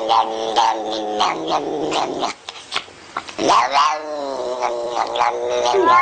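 A cat yowling in long drawn-out calls that bend in pitch, with a short break a little over two seconds in.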